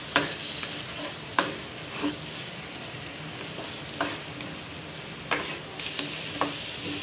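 Sliced onions sizzling in hot oil in a metal kadhai while a spatula stirs them, scraping and knocking against the pan every second or so; the onions are being fried toward golden brown, and the sizzle gets louder about six seconds in.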